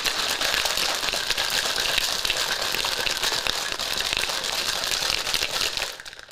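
A plastic shaker bottle of water and powdered drink mix being shaken hard: a continuous sloshing rattle that stops about six seconds in.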